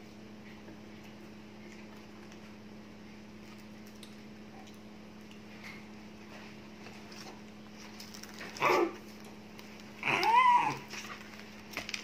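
Steady low hum with faint clicks and rustles of plastic cutlery and paper wrappers. Near the end come two short high-pitched vocal sounds: a brief yelp, then a longer call that rises and falls.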